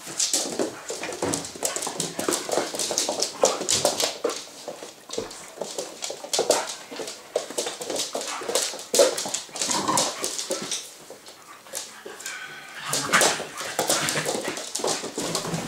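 Two puppies, a Staffordshire bull terrier and a Staffy-cross-husky, play-fighting: short dog vocal sounds over a busy, irregular clatter of claws and paws on a wooden floor.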